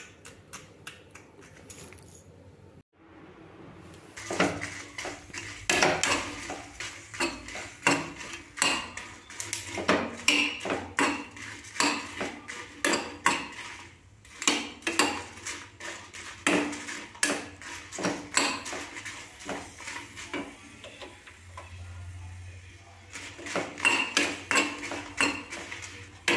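Metal spoon scraping and clinking against a small metal kadai as dry red chillies are stirred and roasted over a gas flame. It is a run of quick, irregular strokes starting about four seconds in.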